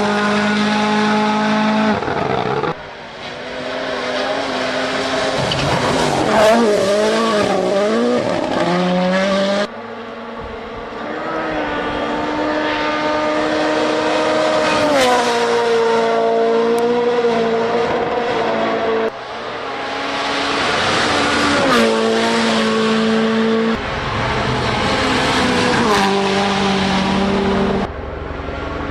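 WRC rally car engines at full throttle, revving up and dropping back as they change gear, across several clips joined by sudden cuts.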